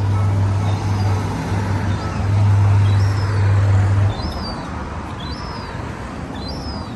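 Steady low hum of the Kupper Automaty bulldozer kiddie ride's motor, cutting off about four seconds in as the ride stops. Short high falling chirps repeat about once a second over a general background din.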